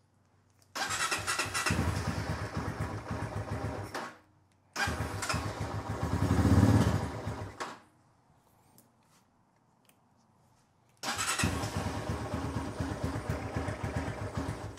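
Honda CRF230F's single-cylinder four-stroke engine being test-fired in three short runs of about three seconds each, each one cutting off abruptly; the middle run swells louder near its end. The engine is coming to life after its carburetor was fitted with a new extended pilot screw set one turn out, and it is running without its air cleaner.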